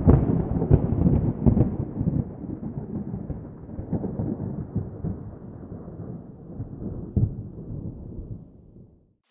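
Thunder sound effect: a deep rumble with sharp cracks that starts suddenly and is loudest in the first two seconds, with one more crack about seven seconds in, then fades out slowly.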